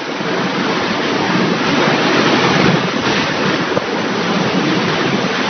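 Storm wind blowing hard against the microphone: a loud, steady rushing that swells and eases a little.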